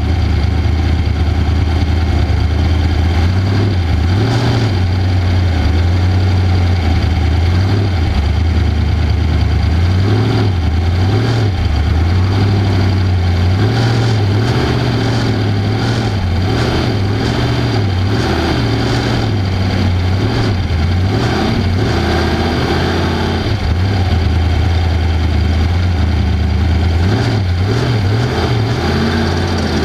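Off-road race vehicle's engine running loud under constantly changing throttle, its pitch rising and falling every second or two, with knocks and rattles now and then from the rough ride.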